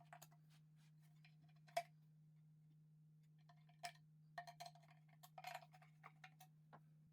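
Near silence over a faint steady low hum, broken by a few light clicks and taps; the sharpest comes about two seconds in, with a small cluster a little past the middle.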